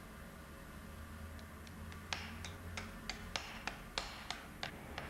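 Farrier's hammer tapping a nail through a steel horseshoe into a Shire horse's hoof: a steady run of sharp taps, about three a second, starting faintly and getting firmer about two seconds in.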